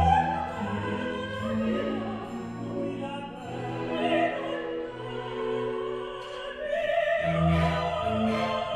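Opera orchestra playing sustained string-led chords while a woman sings an operatic line with vibrato over them.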